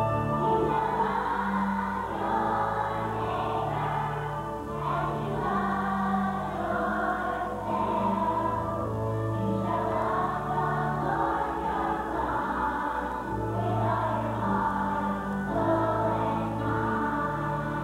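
Children's choir singing together over instrumental accompaniment, with held bass notes changing every second or so under the voices.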